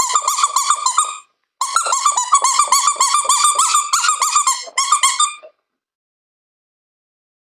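Rapid run of high-pitched squeaks, several a second, in two bursts with a short break about a second in.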